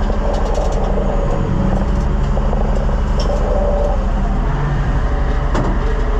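White 4-150 tractor's Caterpillar 3208 V8 diesel running steadily, with a short click about five and a half seconds in.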